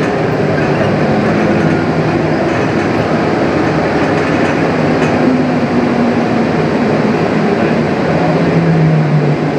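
Rubber-tyred Bombardier Innovia APM 100 people-mover car running along its guideway, heard from inside the car: a loud, steady rumble with a low drive hum that sags slightly in pitch near the end as the car slows toward the station.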